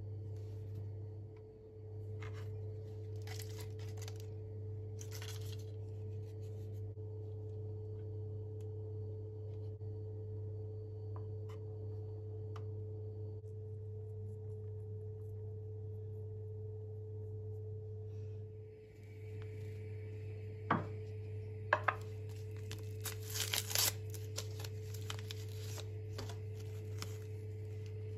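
Foil wrapper of a cream-cheese portion crinkling as it is unwrapped, then, near the end, a paper tea-bag envelope rustling and tearing with a few sharp clicks against a cup, over a steady low hum.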